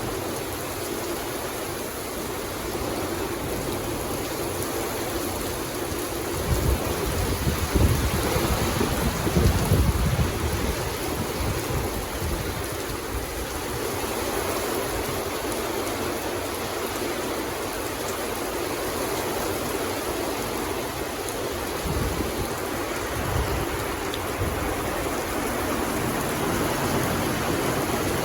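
Steady rain falling, an even hiss throughout. Low rumbles swell up about a quarter of the way in and again briefly past the middle.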